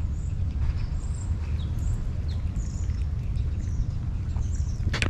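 A cat eating chunks of wet food from a clay dish close by, with faint chewing clicks. Small birds chirp over and over in the background above a steady low rumble.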